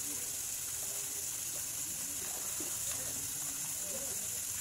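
A steady high hiss runs throughout, with faint voices of people talking in the distance.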